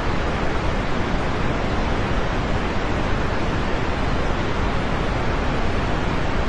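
Steady, dense rain falling: an even hiss with no single drops standing out and no thunder or other events.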